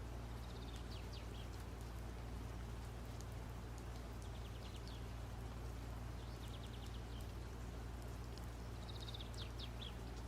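Faint, high bird chirps in short runs every couple of seconds, over a steady low hum.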